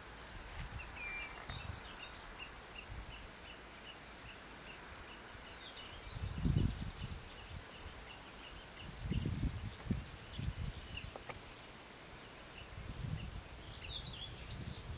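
Wetland birds calling: a long run of short, evenly spaced high notes, about three a second, with scattered higher chirps. Irregular low rumbles come and go beneath them and are loudest twice in the middle.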